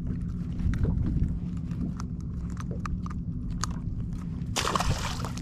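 A small black sea bass being unhooked by hand: scattered light clicks and rustles from the jighead, the fish and the hands, over a steady low hum. A short rush of noise near the end.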